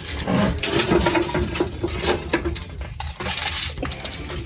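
Quick irregular clicks and clinks as a MacBook Pro's keyboard is prised away from the metal top case it is taped into.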